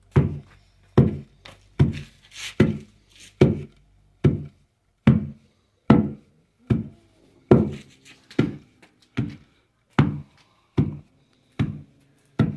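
Pestle pounding roasted peanuts in a wooden pilão (mortar): a steady rhythm of dull thuds, about one stroke every 0.8 seconds, crushing the peanuts to make paçoca.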